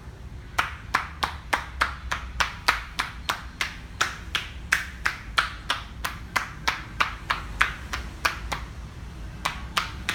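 Percussive massage (tapotement): the masseuse's hands, palms pressed together, striking a person's back and hip through cloth, each strike a sharp clap. About three strikes a second, with a short pause near the end before the rhythm picks up again.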